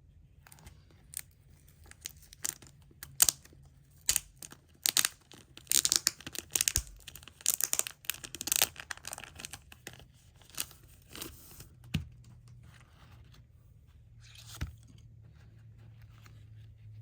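Wrapping on a CD being torn open and crinkled, in a run of rasping tears and sharp clicks of handling. It is thickest and loudest a few seconds in, then thins out to a few more crinkles and one last tear near the end.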